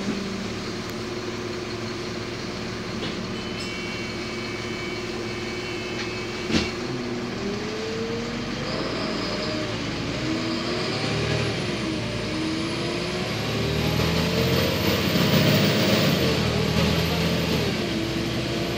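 Volvo B7LA articulated bus heard from inside the passenger saloon while moving: a steady diesel engine hum, then from about seven seconds in the engine note rising and falling and growing louder toward the end. A single sharp click about six and a half seconds in.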